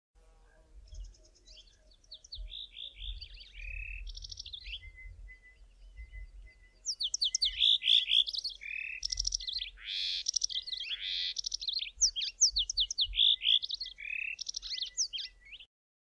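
White-throated canary singing one long, continuous, melodic song of rapid, varied twittering notes, trills and quick downward slurs. It grows louder about halfway through and stops just before the end.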